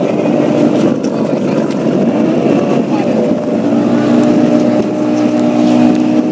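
Boat engine running steadily with a droning hum over the noise of water; its pitch wavers briefly a little under halfway through, then holds steady.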